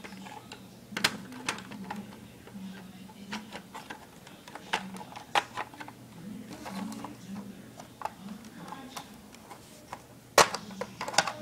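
Irregular plastic clicks and knocks from a toy remote-control car's body and wheel parts being handled and fitted together, with one sharper knock near the end.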